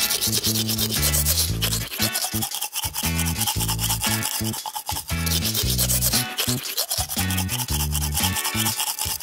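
Toothbrush scrubbing with rapid back-and-forth strokes, as of teeth being brushed, over background music with a bouncing bass line.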